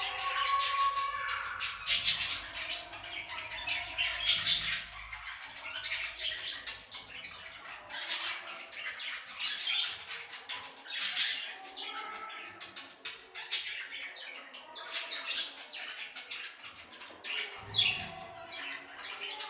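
Budgerigars chattering: a continuous stream of quick warbling chirps broken by sharper squawks.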